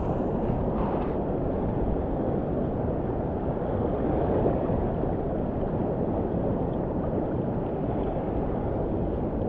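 Steady low rushing of sea surf and wind on the microphone at the shoreline.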